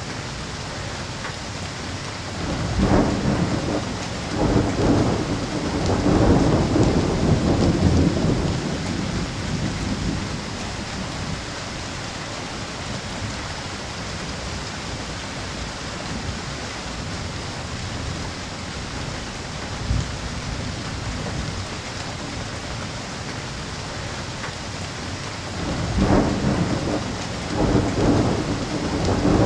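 Thunderstorm: steady rain with two long rolls of thunder, one starting about three seconds in and rumbling for several seconds, the other building near the end.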